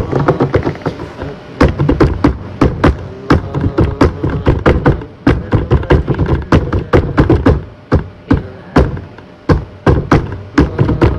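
Hands tapping and thumping on a desk close to the microphone, an irregular run of sharp hits, several a second, with short pauses along the way.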